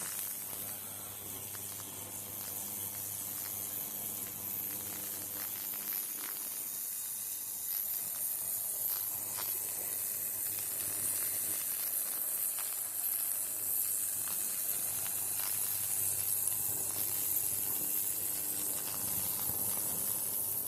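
Ultrasonic cleaner running, its bath of water, dish detergent and citric acid cavitating around rusty, carbon-coated engine parts with a steady high hiss, scattered faint ticks and a low hum.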